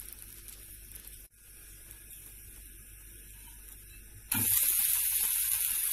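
A thin milk pancake frying in a skillet on a high gas flame with a faint, steady sizzle, briefly cut off about a second in. Past four seconds a much louder sizzle starts abruptly from the hot pan.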